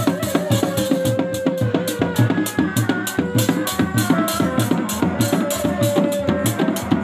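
Sundanese reak ensemble playing live: dog-dog frame drums beaten in a fast, driving rhythm, with a terompet shawm holding long notes above them that step to a new pitch now and then.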